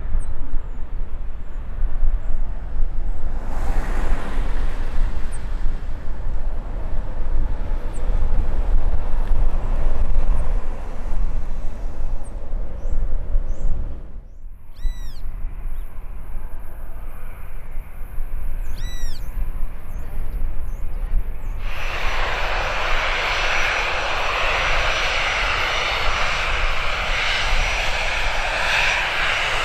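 Jet aircraft engine noise with a low rumble. Two short chirping bird calls sound in the middle. About three-quarters of the way in, a loud, hissing jet noise with a high whine sets in suddenly and holds steady.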